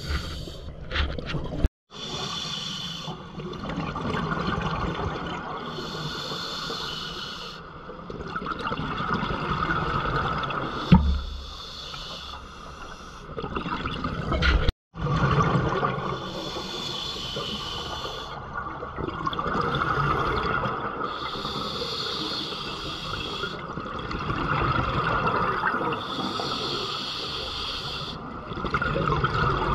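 Scuba diver's breathing heard through the camera underwater. The regulator hisses on each inhale, and exhaled bubbles rumble and gurgle, in a slow cycle about every four to five seconds.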